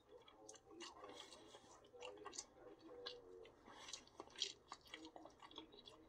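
Faint chewing of grilled chicken, with a scatter of soft mouth clicks.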